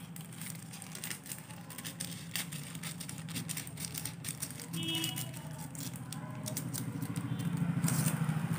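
Thin tracing paper crackling and rustling as it is handled and trimmed, with scattered sharp little clicks, over a steady low hum.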